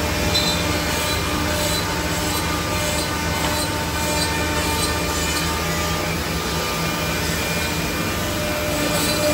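Ten-head CNC mortising machine running, its router spindles cutting mortises into wooden rails: a loud steady mechanical noise with a low hum and steady spindle tones that come and go.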